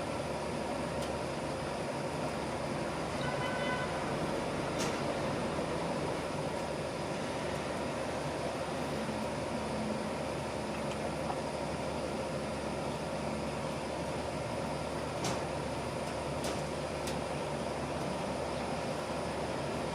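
Steady running hum of commercial laundry machines (washer and tumble dryers), with a few faint clicks.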